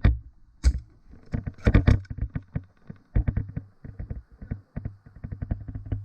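Airsoft electric gun firing in repeated short full-auto bursts: rapid sharp clicks, roughly a dozen a second, over the low hum of the gearbox motor.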